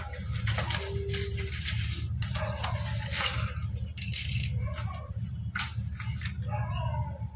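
Slate pencils clicking and clattering against one another as hands sift through a loose pile and handle a cardboard box of them, over a steady low hum. A brief wavering tone sounds near the end.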